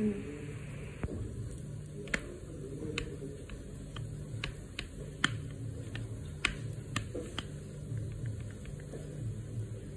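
Light, irregular clicks and taps as fingers press and pat soft dough into a small steel plate, over a steady low hum.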